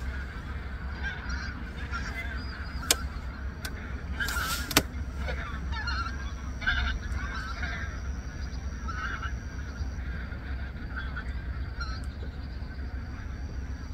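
Large flocks of migratory waterfowl flying in overhead, many birds calling at once in short overlapping honking calls, with a couple of sharp clicks about 3 and 5 seconds in.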